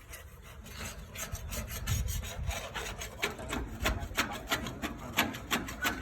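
A quick, irregular run of short scraping or rubbing strokes, several a second, building about a second in.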